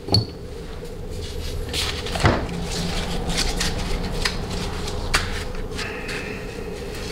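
A few light clicks and taps of small steel transmission valve parts being handled and set down on a workbench, the clearest right at the start and one about two seconds in, over a steady low hum.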